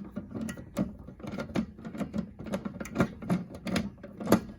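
Screwdriver with an Allen-head bit turning the screw of a Fire-Lite BG-10 fire alarm pull station to open it: a run of irregular clicks and taps, several a second.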